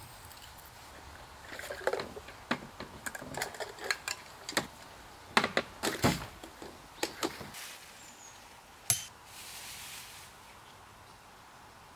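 Irregular clattering of small hard objects being handled: a string of light clicks and knocks, then a brief soft hiss near the end.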